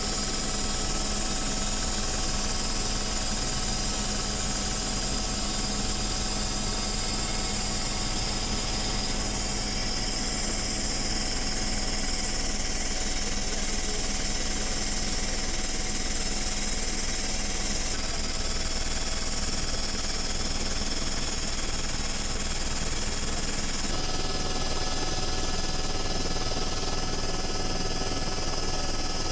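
Steady helicopter engine and rotor noise heard from inside the cabin, a constant mechanical drone with a fast rhythmic throb.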